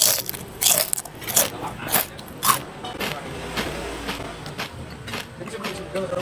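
Close-miked chewing of a mouthful of burger, wet mouth smacks coming about twice a second at first, then fading to quieter chewing. A low rumble sits under it in the middle.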